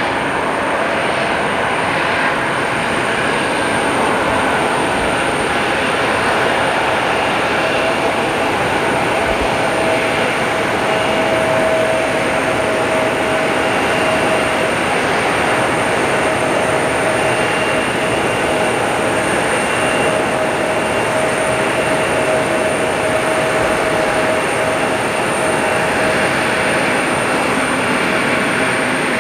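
Embraer E170 regional jet taxiing, its two GE CF34 turbofan engines at taxi power: a steady rush with a held whine over it and no change in pitch.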